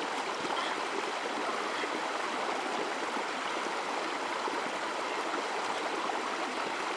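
Shallow river water running over rocks: a steady, even rushing.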